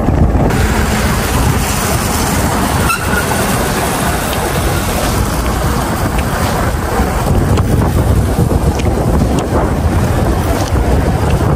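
Steady rush of wind buffeting the microphone over the running engine of a Yezdi motorcycle being ridden at speed.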